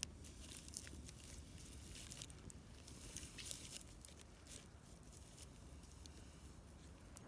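Small wood campfire crackling: irregular sharp pops and snaps at no steady rhythm, over a steady low rumble.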